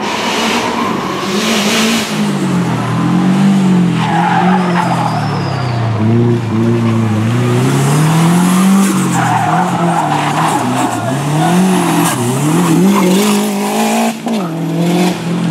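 Subaru Impreza WRX STI's turbocharged boxer four-cylinder engine revving hard, its pitch rising and falling again and again as the throttle is worked. Tyres squeal at times as the car slides through the bends.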